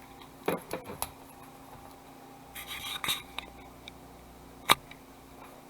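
Cardboard trading-card hobby box being handled and opened by hand: scattered light clicks and taps, a short scraping rustle about three seconds in, and one sharp tap near the end.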